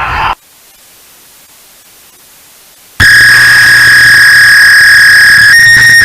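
Faint hiss for about three seconds, then a loud, harsh emergency-alert alarm tone cuts in suddenly: one steady high tone over heavy static, stepping slightly higher in pitch near the end.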